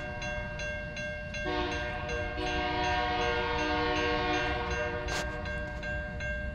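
Diesel locomotive horn sounding a held chord, with a grade-crossing bell ringing rapidly and evenly (about four strikes a second) and a low engine rumble underneath.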